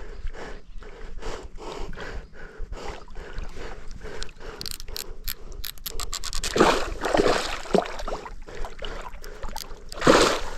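Fishing reel being wound, a rhythmic mechanical clicking about three strokes a second, with louder rushing bursts about two-thirds of the way through and near the end.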